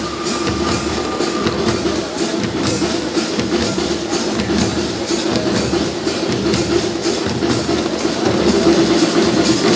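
Fanfarra marching band of brass and percussion playing live, with drums keeping a steady, even beat under sustained horn tones.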